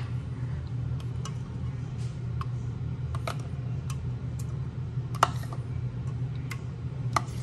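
Metal spoon clicking and tapping against a plastic jar while scooping out aloe vera gel: scattered light clicks at irregular spacing, a louder one about five seconds in, over a steady low hum.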